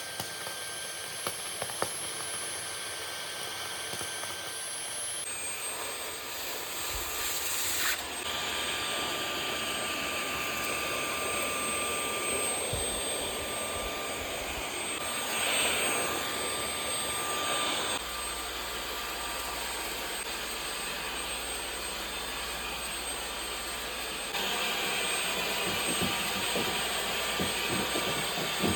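MBYULO 600-watt cordless stick vacuum running, a steady rushing noise with a thin high whine. Its tone and level shift abruptly several times along the way.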